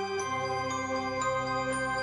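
Background music: a slow melody of struck notes, about two a second, over held low notes, with the chord changing just after the start.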